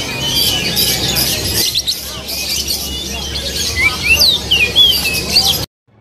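Oriental magpie-robin (kacer) singing: a rapid stream of rising and falling whistles mixed with harsher notes, over a low background murmur. It cuts off suddenly near the end.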